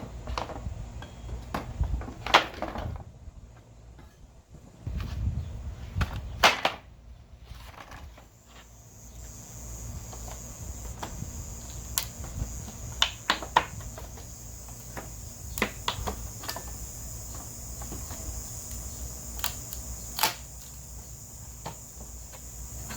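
Pallet boards being pried off with a homemade steel pallet buster bar: scattered sharp cracks and knocks of wood splitting and nails pulling free, some with a short metallic ring. A steady high-pitched hiss sets in about nine seconds in.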